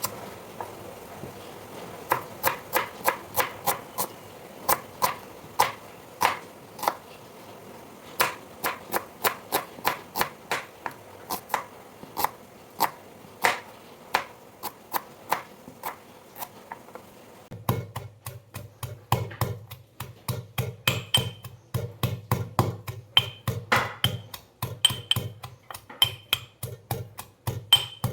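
A knife chopping on a cutting board in repeated strokes, at a steady pace of about two a second at first, then faster from about two-thirds of the way through, with a low hum underneath from then on.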